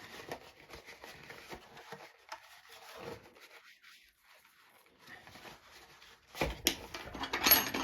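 Hands rubbing and pushing at a small pigskin leather bag to set its corners: soft rustling and scraping of leather, louder near the end.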